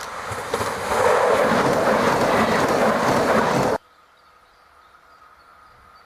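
A train passing close on the track: a loud, even rushing rail noise that builds up and then cuts off abruptly a little before four seconds in, leaving quiet open-air background.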